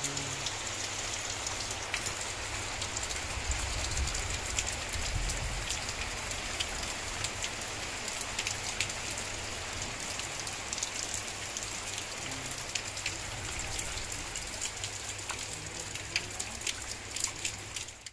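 Steady rain falling on wet ground and puddles, with many sharp drops splashing through it.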